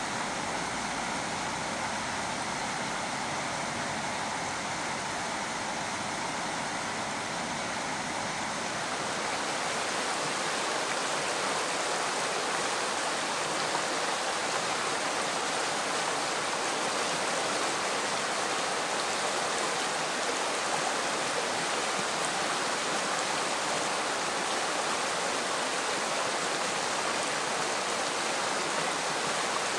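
Shallow river running over a gravel bed, a steady rush of water that turns brighter and a little louder about nine seconds in.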